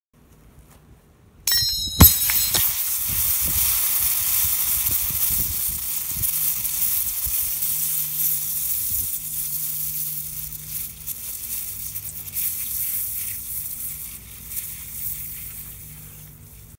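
An anvil slams onto an aerosol can of Silly String about two seconds in, and the crushed, punctured can then hisses steadily as it vents, slowly fading toward the end.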